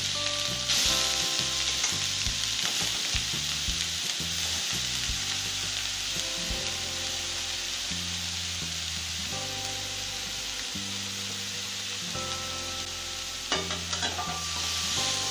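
Grated carrots sizzling in hot ghee in an aluminium kadai, loudest as they go into the pan and easing slowly as the fat is taken up. Near the end come a few knocks as a wooden spatula starts stirring them in the pan.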